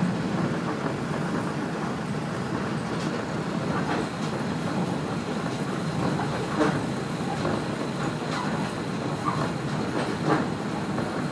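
Kashima Rinkai Railway 6000-series diesel railcar running at speed, heard from inside the car: a steady rumble of engine and wheels on the rails, with a few sharper clacks as the wheels pass rail joints.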